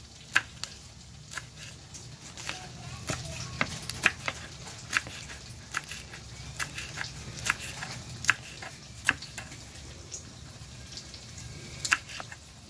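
Chef's knife slicing a green chili pepper on a wooden cutting board: sharp, irregular chops about two a second, pausing for a couple of seconds near the end before a few more.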